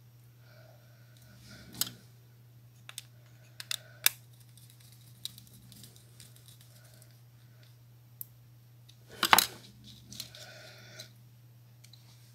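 Scattered small clicks and taps of a screwdriver working the screw terminals of a W1209 thermostat board as wires are fitted, the loudest cluster about nine seconds in, over a steady low hum.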